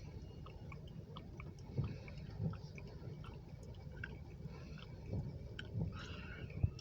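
Slow grain hopper freight train rolling past, heard faintly: muffled low thumps in pairs about every three seconds, with light ticking over them.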